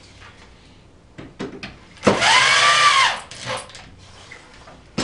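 Power drill driving a screw into barnboard for about a second, its motor whine rising and then falling as it speeds up and slows. A few light knocks come just before it and one sharp knock near the end.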